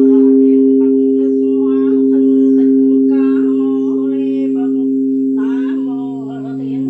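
Buddhist temple bell ringing on in a steady two-tone hum, with a voice chanting over it syllable by syllable.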